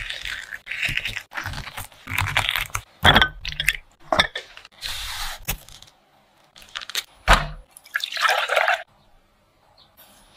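Stainless-steel melon baller scraping and scooping wet melon flesh in a series of separate squelching strokes. A little after halfway it gives way to clicks and crinkling as the cardboard box and foil wrapping of a pack of cream cheese blocks are handled.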